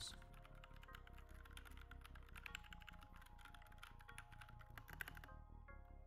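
Fast typing on a Keychron K2 keyboard with Cherry MX Brown switches: a quick, dense patter of key clicks, faint under background music. The typing stops about five seconds in.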